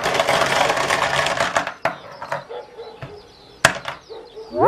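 Green gumballs poured out in a dense clatter that dies away after about a second and a half, followed by a few separate clicks as single balls settle. A short rising whistle-like glide comes right at the end.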